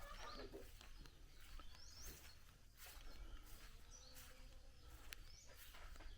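Quiet outdoor ambience with faint, scattered bird chirps, short rising calls, and a few soft clicks.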